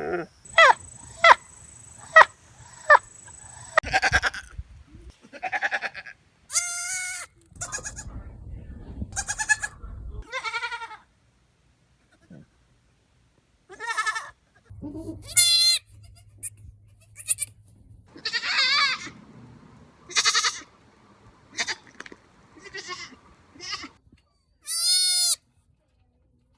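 Goats bleating and screaming in a series of separate calls: a quick run of short bleats at the start, then longer, high-pitched cries, with a few seconds of silence near the middle.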